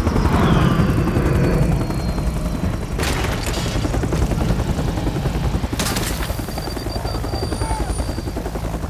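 Helicopter rotor beating fast under a deep boom in the first two seconds, with a high falling whine over it, then two sharp crashes, about three and six seconds in: a film battle sound mix.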